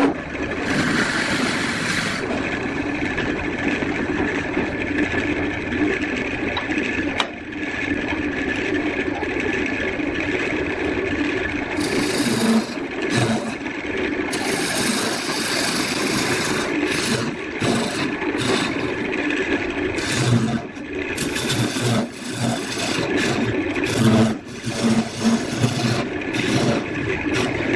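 Wood lathe running steadily, with a tool scraping against the spinning wood in uneven spells through the second half.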